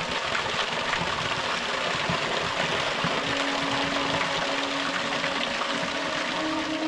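Waterfall: a steady rush of falling water. A soft held musical note comes in faintly about halfway through.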